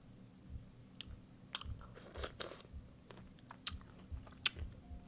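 Pickle being chewed close to the microphone: wet crunching and mouth smacking in irregular clicks, loudest about two seconds in.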